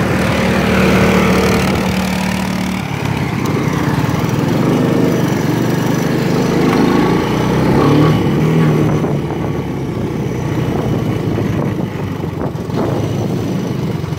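Honda Big Red's single-cylinder engine running while it is ridden, heard from the rider's seat; the engine note shifts as the throttle changes a few seconds in and again midway.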